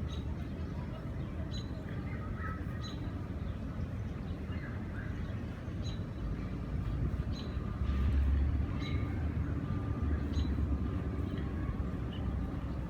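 Low outdoor background rumble that swells for a few seconds past the middle. Over it, a bird gives a short, sharp chip note about every second and a half.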